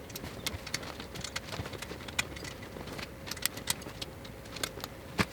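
Irregular light metallic clicks and clinks of hand tools at work on an engine, with a sharper click near the end.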